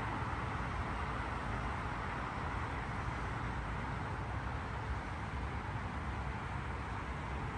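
Steady noise of road traffic going by on a busy city road, a continuous hiss with a low rumble underneath.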